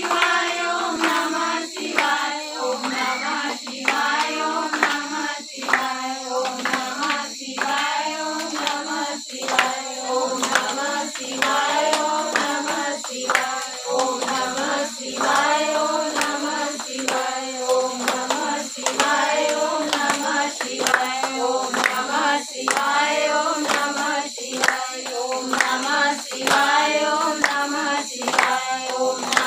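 Women singing a devotional song to Lord Shiva, with hand clapping in time throughout.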